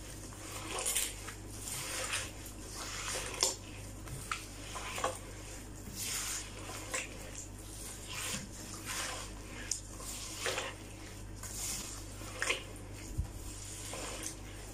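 A bare hand kneading and rubbing soft butter, icing sugar and oil against a glazed clay bowl, in a series of irregular wet rubbing strokes about one to two a second, over a faint steady low hum.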